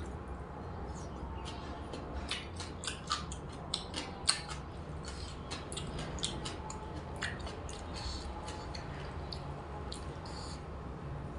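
Someone eating: irregular crisp crunches and clicks of chewing, thickest in the middle, over a steady low hum.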